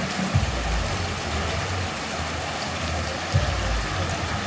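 Heavy rain falling and storm runoff rushing across a flooded street, a steady hiss of rain and running water, with a low rumble underneath.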